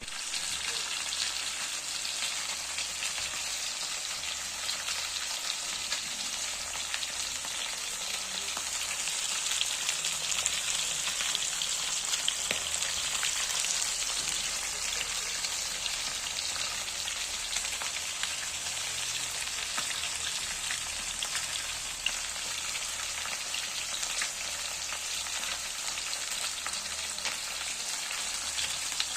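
Pieces of fish frying in hot oil: a steady sizzle thick with fine crackles and pops.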